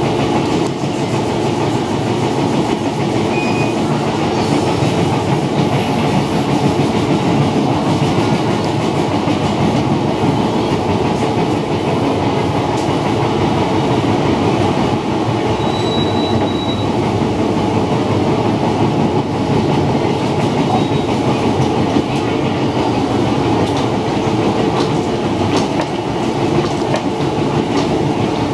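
Cabin noise of an MTR Metro-Cammell electric train running at speed: a steady rumble of wheels on the rails, with faint clicks.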